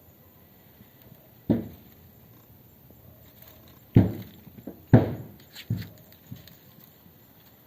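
Four dull thumps: one alone, then three close together a couple of seconds later, with fainter taps between.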